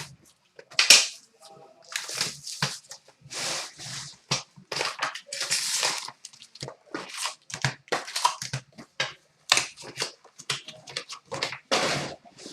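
Packaging of a box of hockey trading cards being torn open and crinkled by hand: irregular bursts of crinkling and tearing with a few sharp snaps.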